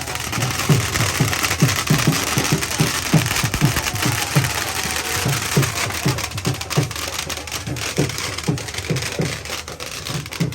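A drum beaten in a steady, fast rhythm, about two to three low beats a second, each dropping slightly in pitch, over a constant background noise.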